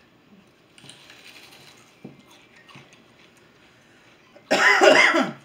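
Faint scattered clicks of chewing and handling raw onion, then about four and a half seconds in a loud, wavering pained cry of about a second from a person with burning eyes and mouth.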